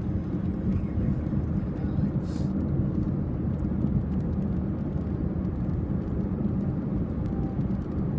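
Steady low rumble of a car cruising at highway speed, mostly tyre and road noise with engine hum, heard from inside the cabin.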